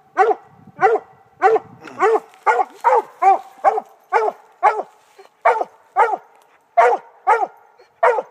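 Redbone coonhound barking at a tree in a steady, rhythmic run of short chop barks, about two a second. This is its treeing bark, the signal that it has game treed.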